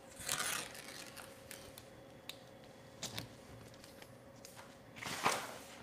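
Knife blade trimming adhesive vinyl wrap along the edge of a chest freezer: a brief scratchy cut just after the start, then a few faint clicks and taps, and a short rustle near the end.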